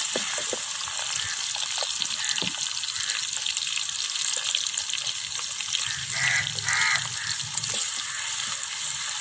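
Sliced onions sizzling in hot ghee in a pan as they are sautéed: a steady hiss with scattered small clicks from stirring. A brief muffled sound comes about six seconds in.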